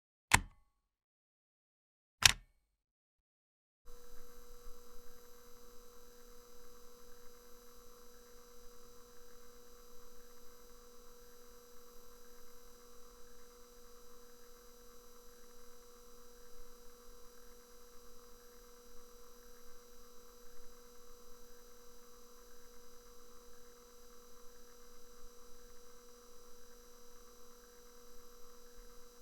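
Two sharp clicks of a cassette deck's mechanism, a couple of seconds apart. About four seconds in, the steady hiss and hum of cassette tape playback starts, with no music on the tape.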